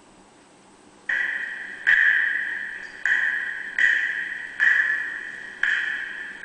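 Music: after about a second of near silence, a run of about six struck, ringing notes, each starting sharply and fading before the next, roughly one every three-quarters of a second to a second.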